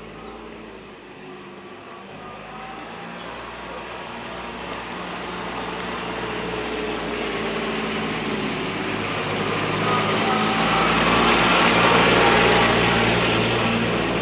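A motor vehicle engine approaching, growing steadily louder over about twelve seconds and loudest near the end as it draws close, then just starting to fade.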